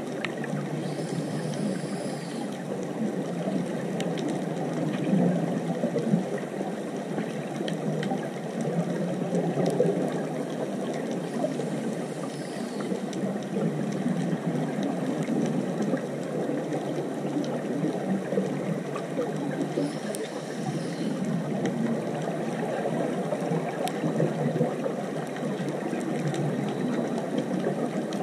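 Underwater ambience picked up by a GoPro in its waterproof housing: a steady, muffled rush of water with a few faint clicks.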